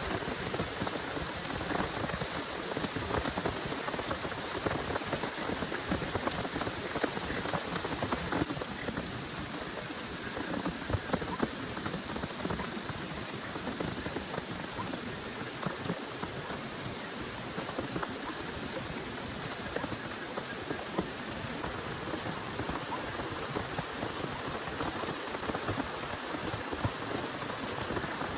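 Heavy rain falling steadily, a dense hiss dotted with the ticks of individual drops striking.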